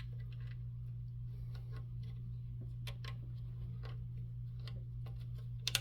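Faint scattered clicks and ticks of small parts being handled and fitted while the antenna holder is slid into place, over a steady low hum; two sharper clicks come close together near the end.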